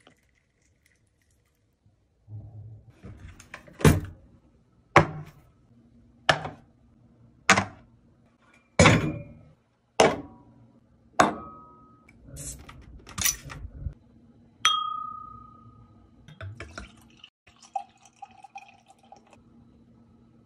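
A small metal hatchet knocking against glass beer bottles: about ten sharp knocks, roughly one a second, one of them leaving a brief ringing tone. Near the end, beer pouring into a glass.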